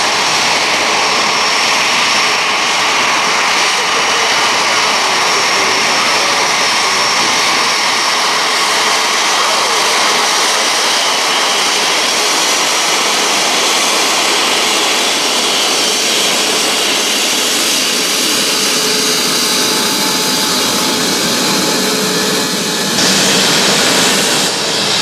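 Airbus A350-900's Rolls-Royce Trent XWB turbofans at taxi thrust: a steady jet whine over a broad hiss as the airliner rolls past. Near the end the whine suddenly grows louder and brighter.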